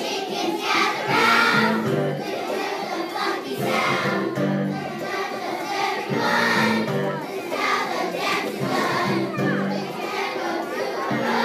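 Choir of young schoolchildren singing together with musical accompaniment, the sung notes held and moving in steps.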